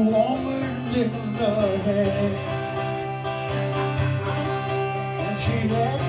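A man singing live, accompanying himself on a strummed acoustic guitar.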